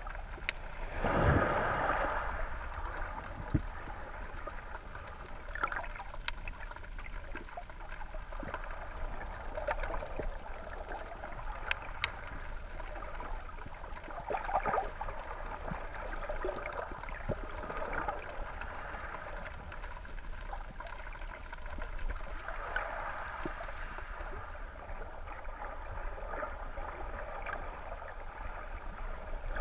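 Underwater ambience picked up through a GoPro Hero 3 Black's waterproof housing: a muffled rush of moving water that swells and fades every few seconds as the wave surge passes over the shallow reef, with scattered sharp clicks.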